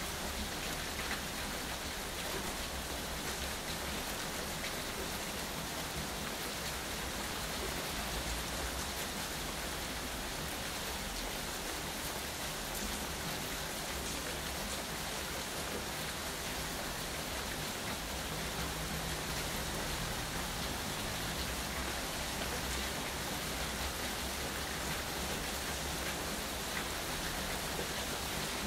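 Steady rain falling, an even hiss of drops that holds at one level throughout.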